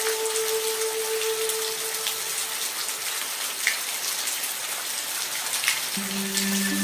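Steady rain with scattered drop ticks, over soft background music of long held notes. One held note fades out in the first couple of seconds, and a lower chord of held notes comes in near the end.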